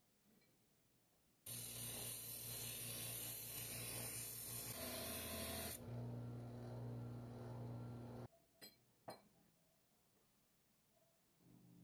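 An electric power tool runs for about seven seconds, starting and stopping abruptly. It is loud and hissy over a steady motor hum for the first four seconds, then only the steady hum remains. Two light clicks follow.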